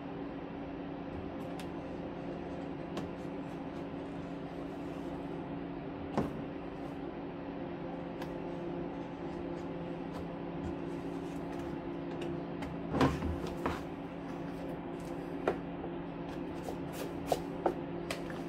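Box cutter scraping and trimming plastic burrs from the holes drilled in a plastic tote lid, with a handful of sharp plastic clicks and knocks, the loudest about two-thirds of the way through, over a steady low hum.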